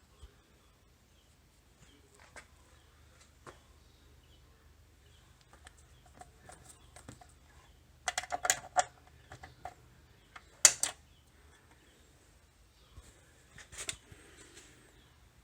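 Sporadic clicking and clattering of small hard objects, with a busy run of clicks about eight seconds in and one sharp, loudest click near eleven seconds.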